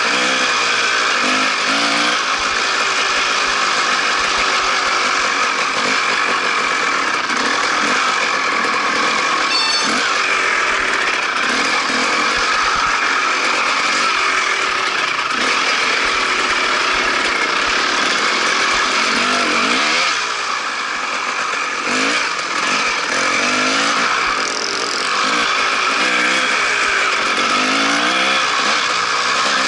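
Dirt bike engine running as it is ridden, the pitch rising and falling with the throttle. The level drops briefly about twenty seconds in as the throttle eases, then the revs climb again.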